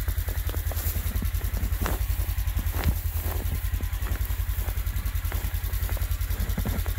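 Polaris Ranger XP 1000 utility vehicle's engine idling with a steady low, quick pulse. Boots crunch through deep snow now and then.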